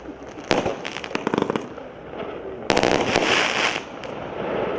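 Legenda Hit A7013 firework battery (cake) firing: a sharp bang about half a second in, a quick run of crackling pops, then another volley of bangs just before three seconds, followed by about a second of dense crackling.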